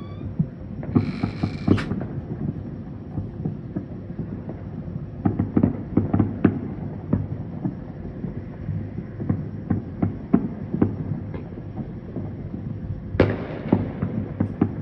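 Fireworks and firecrackers going off: scattered pops and bangs throughout, a brief hiss about a second in, and a louder bang near the end that rings on.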